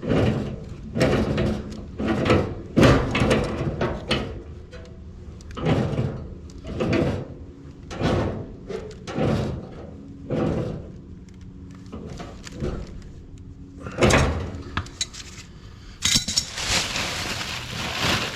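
Black-iron gas pipe fittings being worked by hand: a run of metal clunks and scrapes about once a second, a sharper strike a little later, then a steady hiss near the end.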